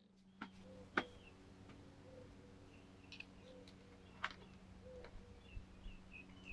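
A few faint sharp clicks, the loudest about a second in, over a steady low hum, with soft short chirps recurring throughout.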